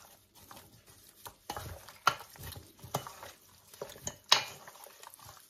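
Pork back ribs in marinade being mixed by gloved hands in a stainless steel bowl: irregular wet slaps and squelches of meat, with sharp knocks as pieces hit the bowl, the loudest about four seconds in.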